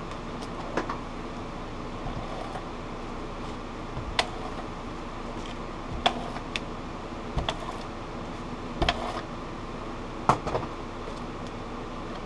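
Scattered light taps and clicks of card stock and craft tools being handled and set down on a tabletop, over a steady background hum.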